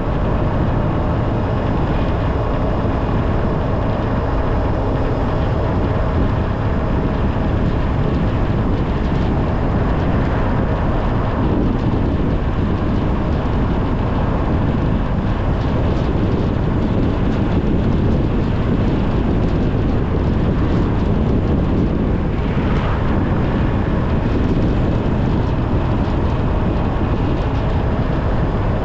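A car driving at a steady pace: a constant rumble of engine and tyre noise on the road.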